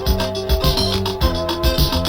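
Instrumental passage of late-1980s rock music: a steady drum beat under sustained keyboard chords, with no singing.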